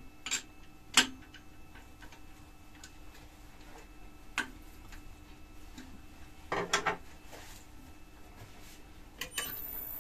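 Scattered light metallic clicks and knocks of an eccentric chuck being handled and fitted on a wood lathe. Near the end a click, then the lathe's motor starts with a steady hum and a thin high whine.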